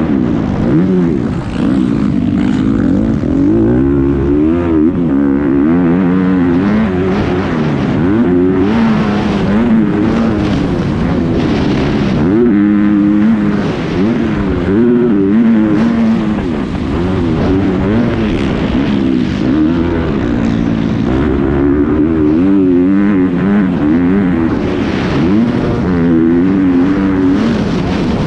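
Motocross bike engine ridden hard, its pitch climbing and dropping again and again as the rider works the throttle and shifts through the gears, over a steady rush of noise.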